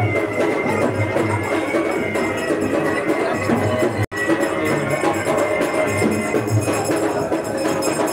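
Music with drums and jingling percussion. The sound drops out for an instant about four seconds in.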